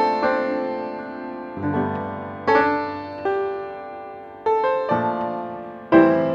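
Piano music: slow notes and chords struck about once a second and left to ring and fade.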